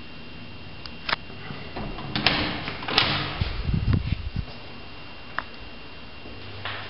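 Room door being handled and opened: a sharp click of the handle about a second in, then a cluster of latch clicks, rattles and low knocks as the door swings open.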